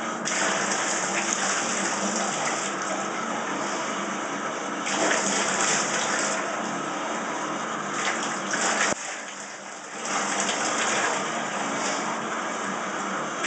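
Water running into a bathtub in a steady rush, which drops away suddenly for about a second some nine seconds in before running again.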